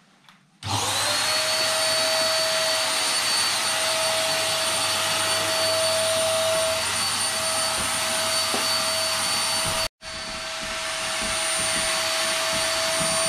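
Electric air pump running steadily while it inflates the rear chamber of a PVC inflatable boat: rushing air with a steady whine over it. It starts abruptly under a second in, cuts out for a moment about ten seconds in, and runs again.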